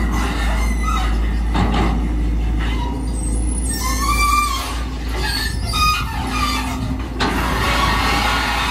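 Volvo EC210DL long-reach excavator working: its diesel engine runs steadily under load while the boom and bucket move, with repeated short, high squeals that bend in pitch.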